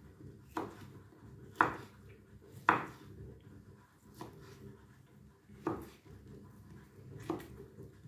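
Kitchen knife chopping ham into cubes on a cutting board: about six separate knocks of the blade striking the board, irregularly spaced, the loudest two about a second apart near the start.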